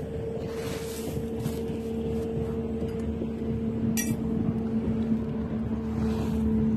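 Steady engine drone at an even pitch, slowly growing louder. About four seconds in, a single sharp click from a long butane lighter being sparked at the stove.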